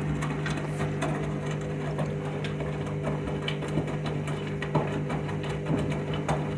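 Washing machine running a deep rinse with a full load of joggers: a steady motor hum with irregular clicks and knocks throughout.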